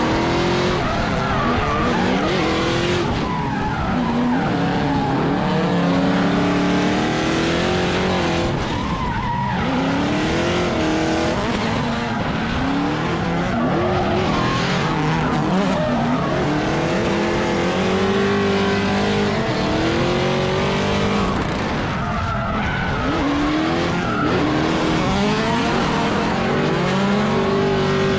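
Two drift cars sliding in tandem: engines revving hard, their pitch climbing and dropping again and again with the throttle, over the steady hiss and squeal of tyres sliding.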